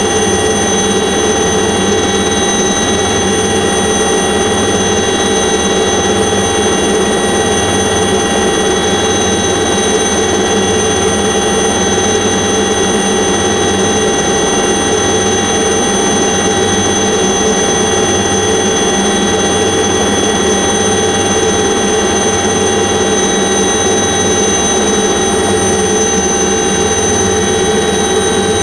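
Aircraft engine running steadily, a loud unbroken drone heard from inside the cabin, with a slow regular beat in its low hum.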